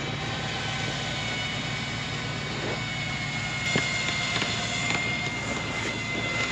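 A vehicle engine running steadily, joined about a second and a half in by a steady high whine, with one sharp click a little past halfway.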